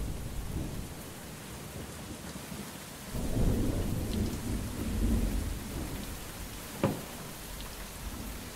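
Steady rain, with a low rolling rumble of thunder that swells about three seconds in and fades over a few seconds. A single short, sharp tap sounds near the end.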